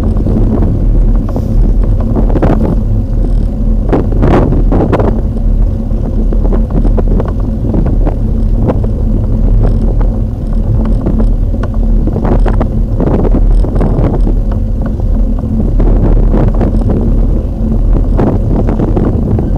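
Wind buffeting an action camera's microphone while cycling: a loud, steady rumble with gusty surges every few seconds.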